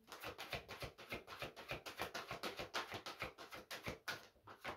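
A deck of oracle cards being shuffled by hand, an overhand shuffle giving a fast, even run of light papery flicks and taps, several a second, with a short pause near the end.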